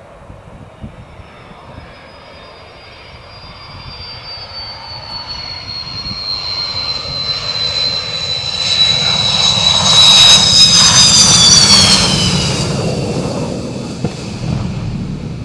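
MiG-29 twin turbofan jet landing: a high engine whine over a rumble grows steadily louder on approach and touchdown, peaks about ten to twelve seconds in, then drops in pitch and fades as the jet rolls past.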